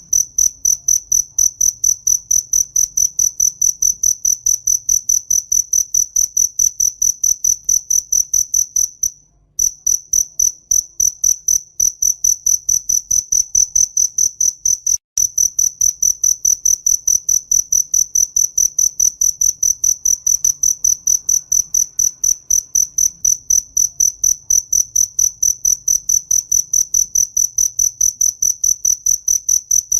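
Cricket chirping in a steady, high-pitched rhythm of about three chirps a second. The chirping pauses briefly about nine seconds in and cuts out for an instant about fifteen seconds in.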